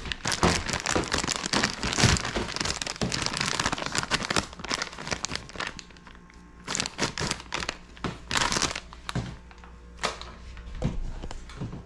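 Packaging crinkling and rustling as items are handled. The rustling is nearly continuous for the first half, then comes in short separate bursts.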